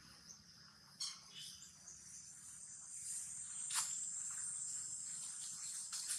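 Insects chirring steadily at a high pitch, growing louder about halfway through, with a few faint clicks and rustles, one sharp click a little past the middle.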